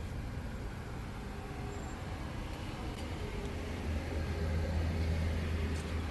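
Steady low rumbling background noise, growing a little louder from about four seconds in.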